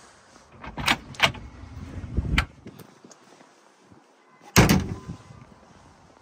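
Hard knocks and clunks in a van's rear load floor: three sharp knocks in the first two and a half seconds, then one loud thump a little after halfway.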